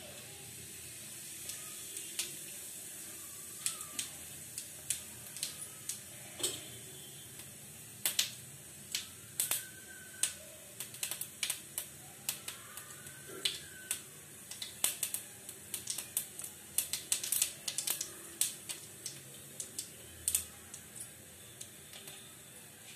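Cumin seeds frying in hot ghee in a kadhai: a steady faint sizzle with irregular sharp pops and crackles, which become more frequent after about eight seconds.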